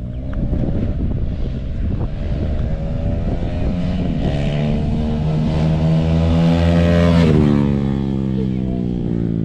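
KTM Duke single-cylinder motorcycle running with its exhaust silencer removed, accelerating past: the engine note climbs in pitch, is loudest about seven seconds in, then drops in pitch as the bike goes by.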